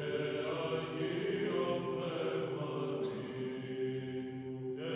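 Background music: a choir singing slow chant with long held notes.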